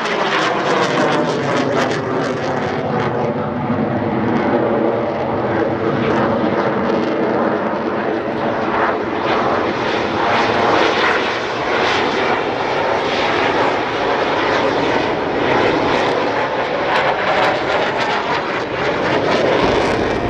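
Jet noise from a pair of T-50 Golden Eagle jets, each with a single turbofan engine, flying past: a loud, steady rush whose pitch sweeps down at the start and rises again near the end.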